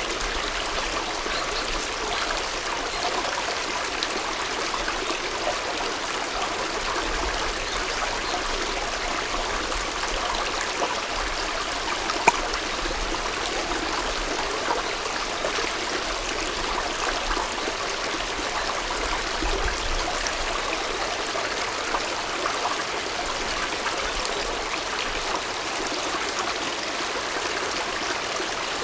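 Mountain headwater stream flowing with a steady, even rush of water, and a single sharp click about twelve seconds in.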